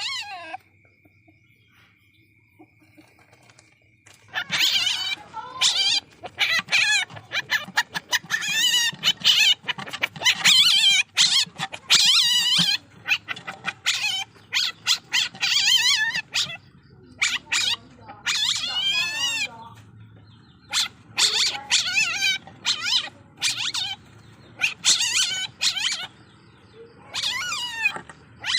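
A young Asian palm civet (musang) calling. Runs of short, high-pitched, wavering squeals come close together, starting about four seconds in after a near-quiet pause.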